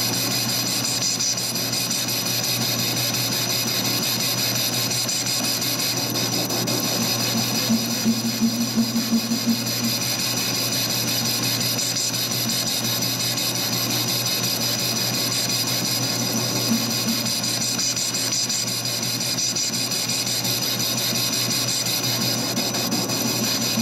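Metal lathe running while a carbide tool cuts a hardened steel shaft, a steady cutting noise with a high whine and a low hum. About eight seconds in, the sound pulses for roughly two seconds.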